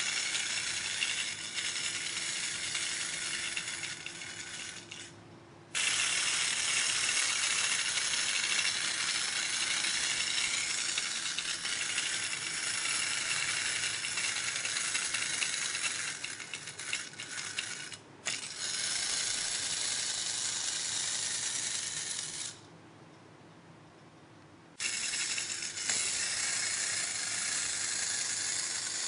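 Clockwork mechanism of a tin wind-up pig toy whirring and rattling as it walks. It fades and stops about five seconds in, starts again abruptly, and falls quiet for about two seconds near the end before running again.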